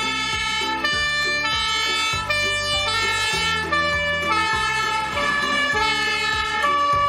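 Fire engine's two-tone siren sounding continuously, stepping back and forth between pitches.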